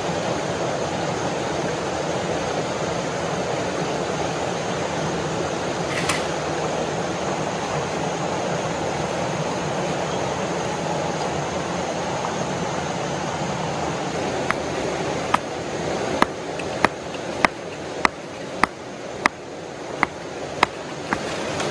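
A steady rushing background noise. About two-thirds of the way in, a hand-held stone starts striking another stone in a regular series of sharp clacks, roughly one and a half a second.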